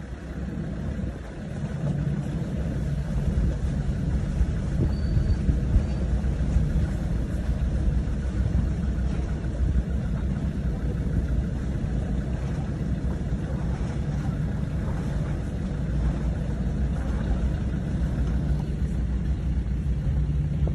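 Engine of an off-road 4x4 running steadily at low revs, heard from inside the cab with a constant low rumble as it crawls down a stony track.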